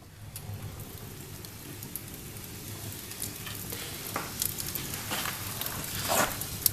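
Fire burning in a cast-iron fireplace firebox, crackling and hissing over a low steady rumble, gradually getting louder.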